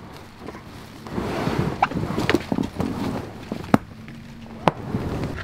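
Inflatable raft being dragged up a bank through dry leaves and brush: rustling and scraping, with a few sharp knocks.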